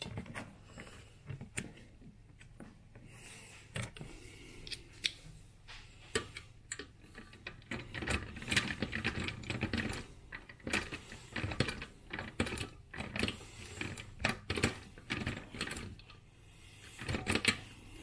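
Hand screwdriver driving screws through the pole flange into a floor fan's metal cross base: irregular clicks, scrapes and light metal knocks, busiest around the middle and again near the end.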